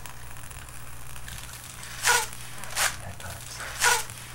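Four short puffs of blown air, in two pairs: someone blowing hard at birthday candles.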